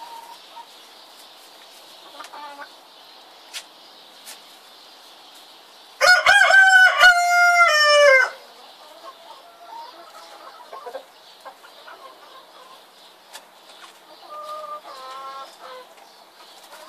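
Rooster crowing once, a loud call about two seconds long starting about six seconds in, falling in pitch at the end. Soft, short chicken calls before and after it.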